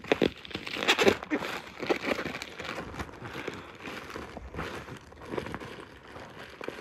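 Plastic parcel mailing bag crinkling and rustling as it is handled and opened, in irregular crackles that are loudest in the first second or so.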